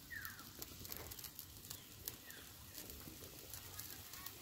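Rohu fish curry boiling hard in an iron kadai over a wood fire: a faint, steady bubbling with many small pops and crackles.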